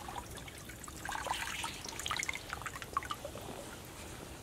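Shallow river water dripping and splashing in small, scattered drops as a hand moves through it among the waterside plants, busiest from about a second in until near the end.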